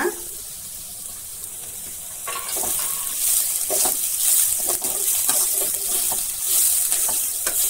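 Grated coconut and vegetables frying in a pan and being stirred with a metal slotted spoon: the sizzling grows louder about two seconds in, with repeated scrapes and knocks of the spoon against the pan.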